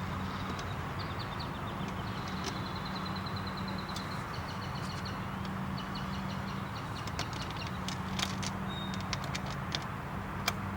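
Steady low hum under background noise, with a bird trilling in short fast runs and a scatter of sharp clicks in the last few seconds.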